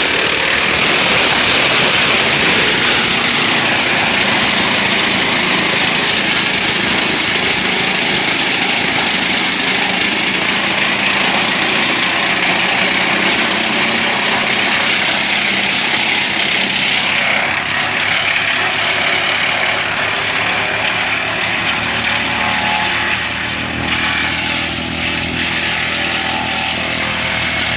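Homemade wood chipper driven by a Mercedes-Benz OM314 four-cylinder diesel engine, running loud and steady. A strong high hiss over the engine note thins out about two-thirds of the way through, leaving the engine's low hum more distinct near the end.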